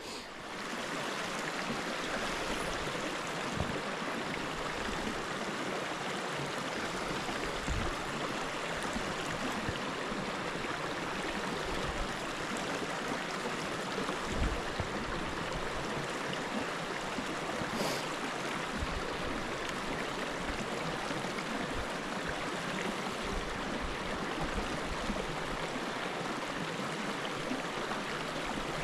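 Small rocky stream running over a shallow riffle: a steady, even rush of water, with a few soft low thumps.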